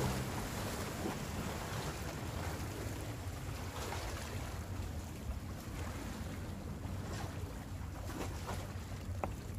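Steady seaside ambience: sea water washing against shore rocks, with wind rumbling on the microphone. A few faint ticks come near the end.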